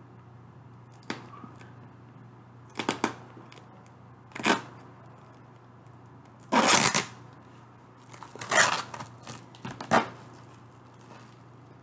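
Packing tape being ripped and scraped off a cardboard shipping box in scattered short bursts, the longest and loudest lasting about half a second near the middle.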